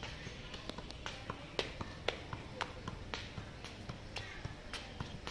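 Football being juggled, tapped up off the foot with a sharp tap about twice a second.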